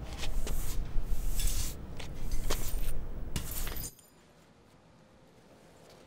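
A broom sweeping broken glass shards and sand across a hard floor: scratchy sweeping with many sharp glassy clinks, stopping abruptly about four seconds in.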